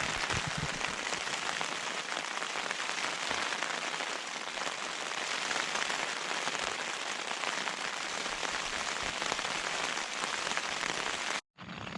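Heavy rain falling on the Hilleberg Soulo tent's flysheet, heard from inside the tent: a steady, dense patter. It cuts off abruptly near the end, giving way to a lower steady noise.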